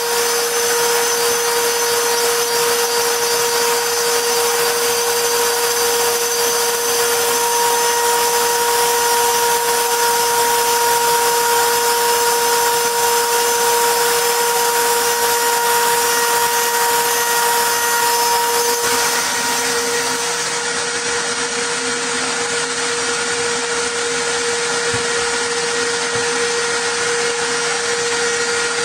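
CNC router spindle running with a steady high whine while engraving a wooden plate. The sound eases slightly about two-thirds of the way through.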